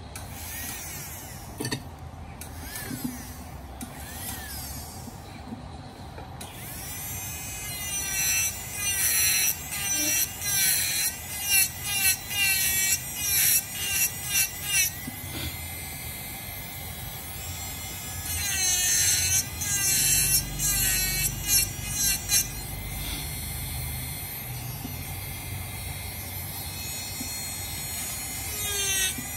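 Rotary tool with a carbide burr carving wood, cutting in quick strokes of about two a second, its whine bending in pitch with each bite. After a quieter first few seconds the strokes come in two runs, then settle into steadier grinding.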